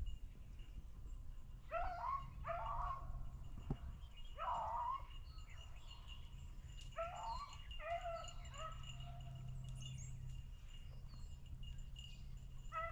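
Beagles baying while running a rabbit track: several drawn-out, bending bays, one group about two to five seconds in and another about seven to nine seconds in.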